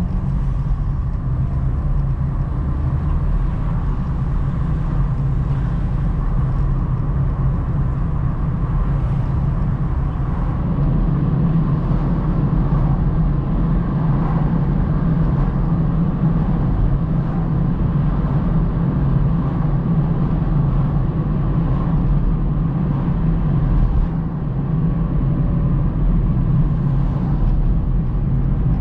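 Steady low rumble of tyre and engine noise heard inside a car's cabin as it drives along a city road.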